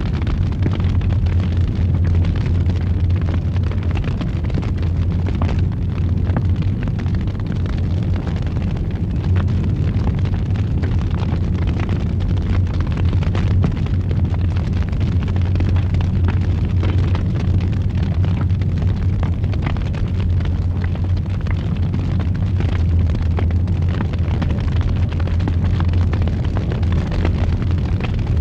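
Fire burning in a fireplace: a steady low roar with scattered crackles and small pops.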